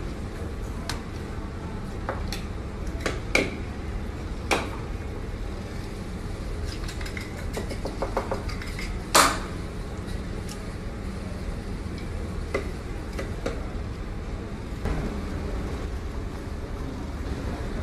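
Knife clacking and tapping on a cutting board as raw meat is cut: a handful of sharp separate knocks, the loudest about nine seconds in, over a steady low background hum.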